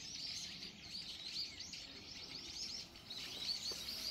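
Small birds chirping continuously, many short high chirps a second.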